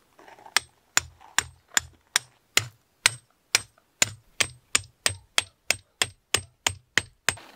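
Metal tent pegs being hammered into gravel ground: a steady run of about twenty sharp metallic strikes, roughly three a second, each with a brief high ring.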